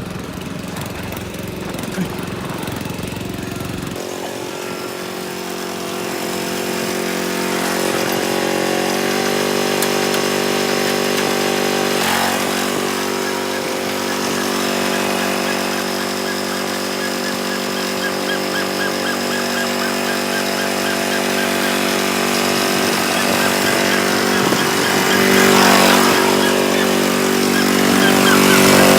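Riding lawn mower engine running under way. Its pitch steps up about four seconds in and again around nine seconds in as it speeds up.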